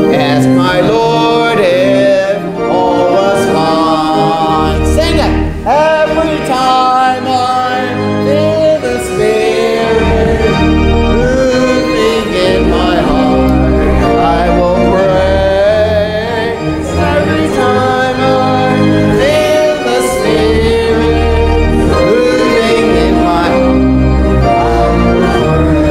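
Gospel-style music with singing; a low bass line comes in about five seconds in.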